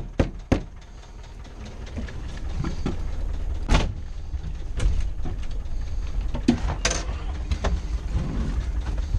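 Off-road vehicle's engine running with a steady low rumble, with several sharp knocks and clunks from the vehicle's body and cab: two in the first second and a louder one about four seconds in.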